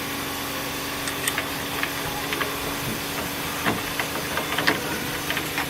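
Steady hum and hiss of a steamship's engine room, with scattered light clicks and taps of metal parts as a cleaned furnace burner is put back together.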